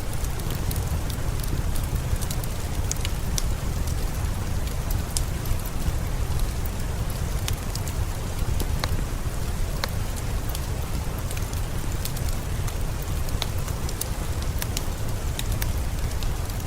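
Steady rain falling, a dense even hiss over a deep rumble, with scattered sharp crackles and pops from a wood fire mixed in.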